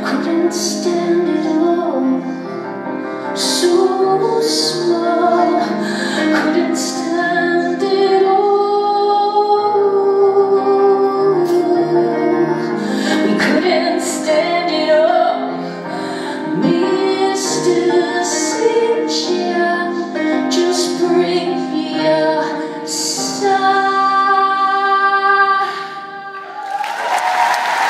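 A woman singing a slow song over musical accompaniment, holding long notes; applause breaks out right at the end as the song finishes.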